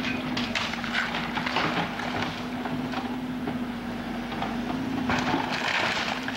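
Wood splintering and crunching as the wooden cabin is torn down, with a dense crackle that thickens near the end. Under it runs a steady low hum, like a machine running.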